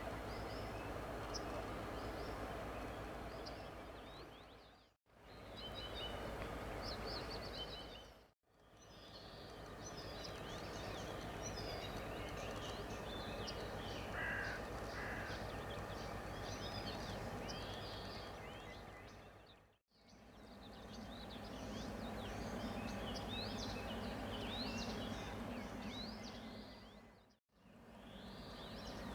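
Many small birds chirping and twittering over a steady low outdoor hum, with two short, harsher calls near the middle. The sound drops out briefly four times.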